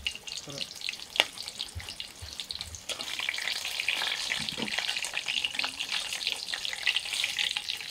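Green chillies frying in hot oil in a pan over a campfire: a steady crackling sizzle full of small spits, with one sharper pop about a second in.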